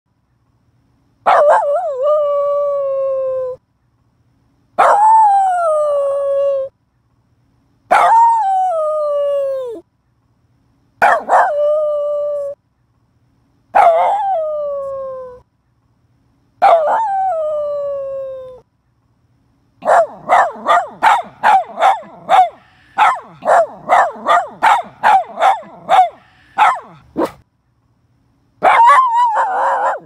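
A dog howling: six long calls of about two seconds each, every one falling in pitch and then held. From about twenty seconds in comes a fast run of short, quick barks, and one more call follows near the end.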